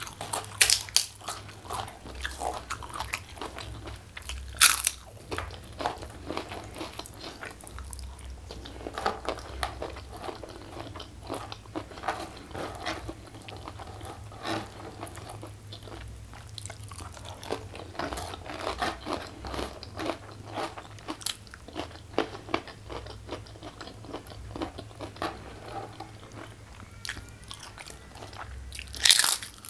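Close-up crunching and chewing of crisp kerupuk (Indonesian crackers) being bitten and eaten, with a stream of sharp cracks and a few louder crunches, one about five seconds in and another near the end.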